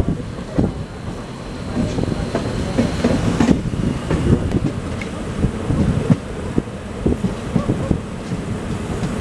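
Passenger train coach running on the rails, its wheels clattering over rail joints with a steady rumble and irregular knocks. The sound jumps suddenly about three and a half seconds in.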